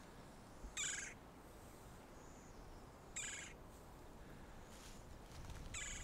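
Red-bellied woodpecker calling three times, a few seconds apart: a short, rolling call each time.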